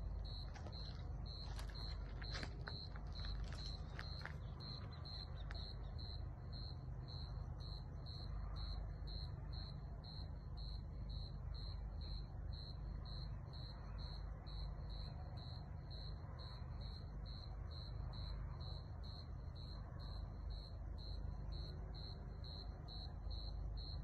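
A cricket chirping at night: one high chirp repeated evenly, about twice a second, over a low steady rumble. A few faint clicks sound in the first few seconds.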